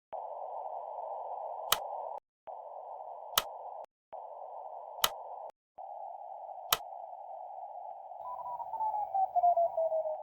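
Radio receiver hiss heard through a narrow CW filter, a steady rushing noise broken by three short dropouts and four sharp clicks spaced about a second and a half apart. Near the end a whistling tone slides steadily down in pitch, like a CW signal being tuned in on the receiver dial.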